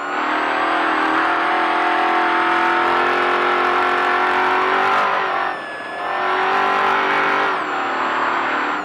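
Off-road race vehicle's engine running hard at high revs, the pitch sagging slowly. About two-thirds of the way through it eases off briefly and comes back on, then drops in pitch again near the end.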